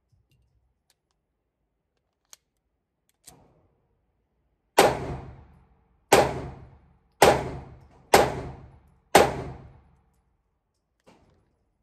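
Five 9mm pistol shots from a Sig Sauer P365 X-Macro, fired about a second apart and echoing in an indoor range. Each shot has a short ringing tail. Two faint knocks come a few seconds before the string.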